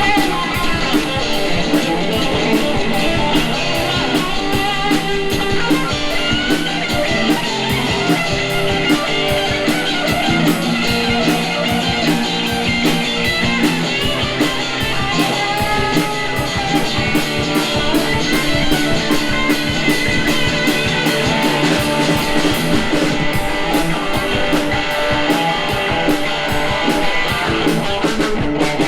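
Live blues band playing an instrumental stretch: electric guitar soloing with bent notes over bass and a drum kit keeping a steady beat on the cymbals.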